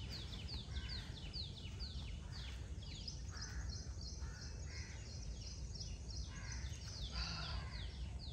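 Birds calling: a fast, continuous run of short high chirps, each sweeping downward, about four or five a second, with a few harsher, lower calls mixed in. A steady low rumble lies underneath.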